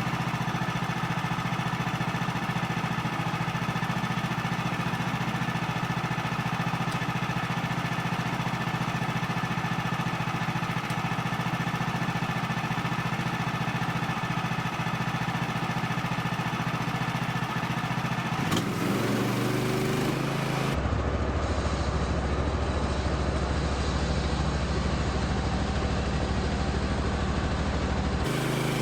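Woodland Mills HM130Max bandsaw sawmill's gasoline engine running steadily. About two-thirds of the way in the engine note changes and drops lower, holding there until just before the end.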